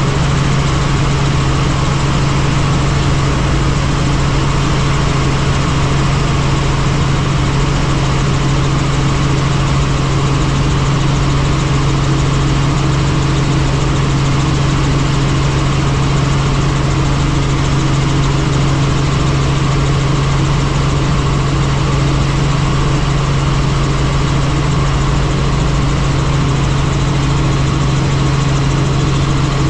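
Helicopter's engine and rotors running steadily: a constant loud drone with a strong low hum.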